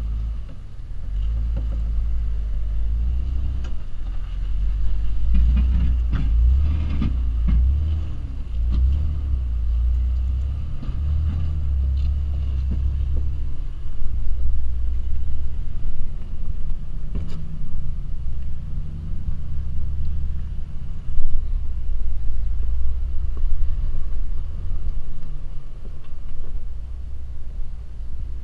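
Jeep Wrangler engine running at low speed as it crawls over large boulders, a deep continuous rumble with a few short knocks along the way.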